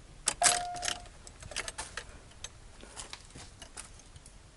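Ignition key of a 1986 Buick Grand National being turned and jiggled in the steering column lock: a few sharp clicks and key rattles, the loudest about half a second in, followed at once by a short steady tone lasting about half a second, then faint scattered clicks.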